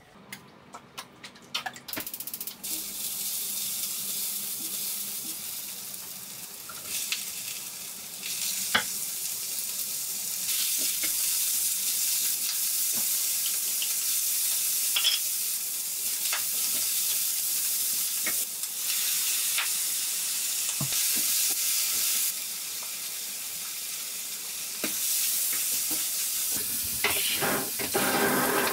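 Green onions, then onion and garlic, sizzling in hot oil in a wok, with the clicks and scrapes of a spatula stirring them; the sizzle starts about two seconds in. Just before the end, a kitchen tap runs water into a steel sink.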